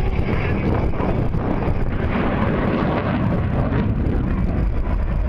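Steady roar of jet aircraft engines, mixed with wind buffeting the microphone.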